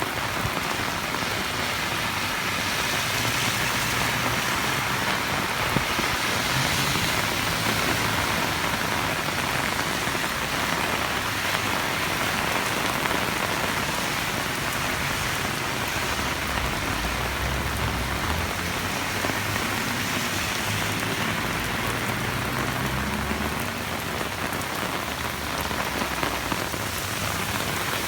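Heavy rain falling steadily, a dense, even hiss of rain on surfaces, with a faint low rumble coming and going underneath.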